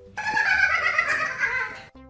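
Grey Scottish Fold cat giving one long, wavering meow that falls slightly in pitch, reacting to a comb held beside it. Faint background music runs underneath.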